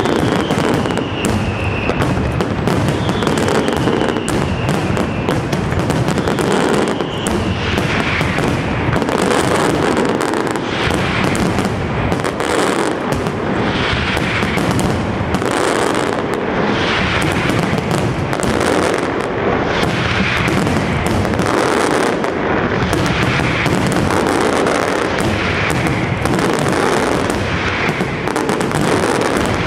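Pirotecnia Europla's castillo aerial fireworks display firing a dense, continuous barrage of shell bursts and crackling bangs with no let-up. In the first few seconds, whistles fall in pitch over the bangs.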